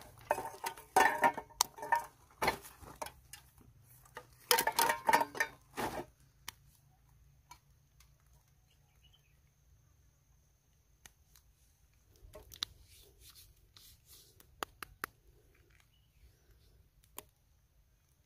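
Hands rummaging through burnt rubbish and debris: clattering and clinking of bits of plastic, glass and metal in two busy spells over the first six seconds, then sparse clicks and taps as broken phones are picked up and handled.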